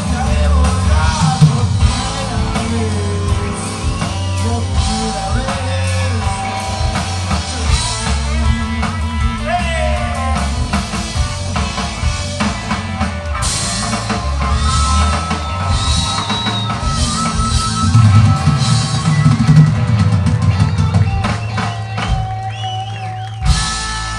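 Rock band playing live, loud and continuous, with drum kit, electric guitars and singing. Near the end the bass drops out for about a second, then comes back with a sharp loud hit.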